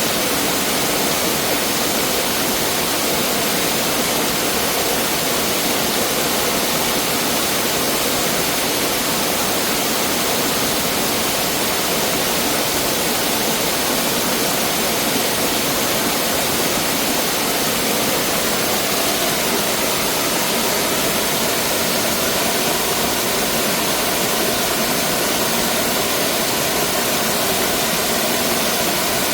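Mountain valley stream rushing over rocks: a steady, unbroken wash of water sound.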